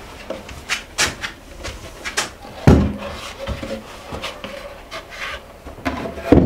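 A large wooden board being handled and set down on a table: scattered light knocks and scrapes, a heavy wooden thump about two and a half seconds in and another near the end as it is laid flat.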